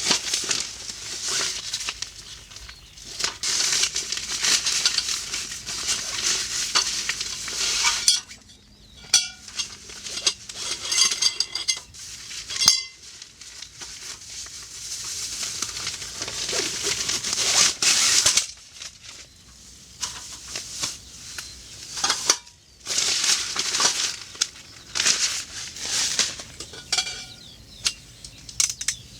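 Camp cooking: metal utensils clinking and scraping against pots and pans, with several stretches of hissing noise lasting a few seconds each.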